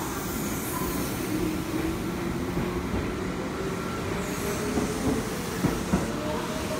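Kintetsu electric train running past along the platform, a steady rumble and hum, with a few sharp clicks from the wheels near the end.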